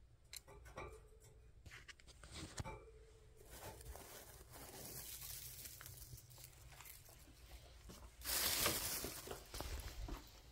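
Rabbits rustling and crunching in dry hay, with small scattered clicks and scratchy rustles, and a louder burst of rustling about eight seconds in.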